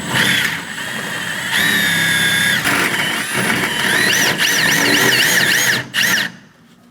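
Power drill drilling out the centres of rivets, with a high squeal from the bit biting into the rivet; the squeal wavers up and down in pitch over the last couple of seconds, then the drill stops.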